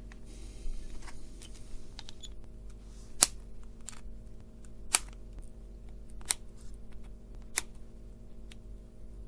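Four sharp snips, roughly a second and a half apart, from side cutters trimming the soldered component leads on a small circuit board, over a low steady hum.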